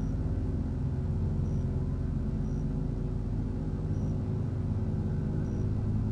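Electroacoustic music: a dense, steady low drone of many sustained tones, with faint short high blips recurring about once a second.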